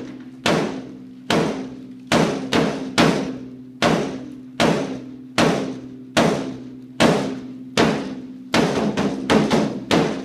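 A drum beaten in a steady beat for a fight song, about one ringing stroke every 0.8 seconds. Near the end the strokes come faster and closer together.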